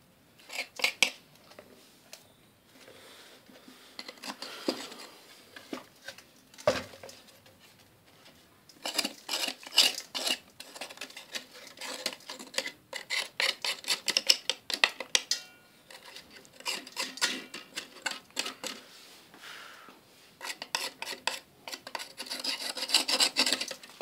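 Scraping dried clay off a clay pot with a thin tool, in bursts of quick strokes with quieter pauses between, over a metal tray.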